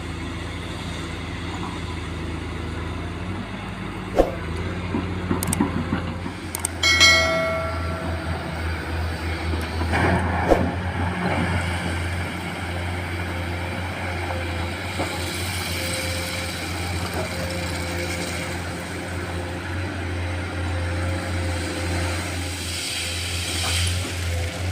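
Komatsu PC210 hydraulic excavator at work: diesel engine running steadily, with scattered knocks and clanks between about four and eleven seconds in and a short ringing tone about seven seconds in. A steady whine runs over the engine in the second half.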